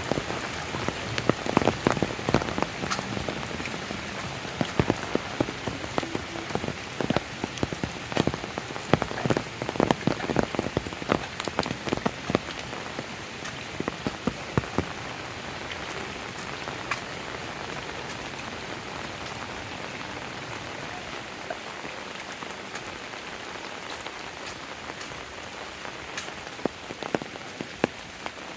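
Rain falling steadily, a constant hiss with many sharp raindrop hits, thickest in the first half and thinning out after about sixteen seconds, with a few more near the end.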